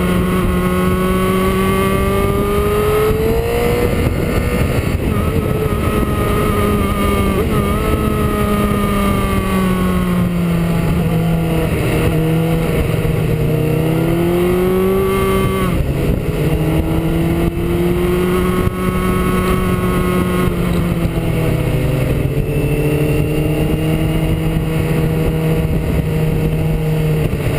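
Motorcycle engine running at road speed, its pitch rising and falling with the throttle and jumping in steps at several gear changes, over a steady rush of wind and road noise.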